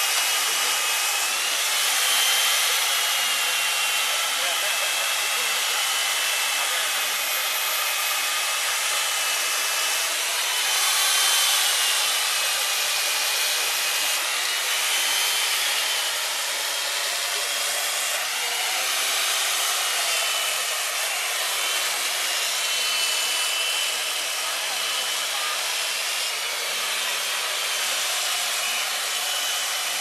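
Electric power tool carving a block of ice: a steady high-pitched motor whine that wavers up and down as the tool bites, over a hiss of ice chips spraying off the block.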